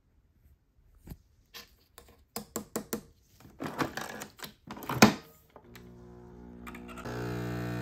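Nespresso Essenza Mini capsule coffee machine being loaded: plastic clicks and knocks as the lever is lifted and the capsule drops in, then a sharp snap about five seconds in as the lever is shut on the capsule. The machine's pump then starts with a steady buzzing hum that grows louder near the end as it begins brewing.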